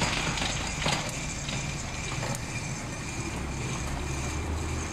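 Quarter-scale model streetcar running along its track with a steady low hum, with a couple of sharp clicks in the first second.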